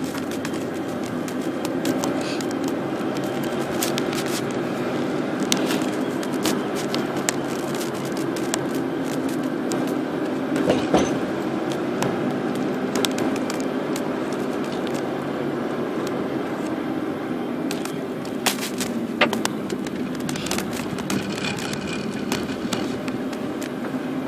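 Car driving, heard from inside the cabin: steady engine and road noise with many small clicks and rattles scattered through it, a few sharper ones about eleven seconds in and again near nineteen seconds.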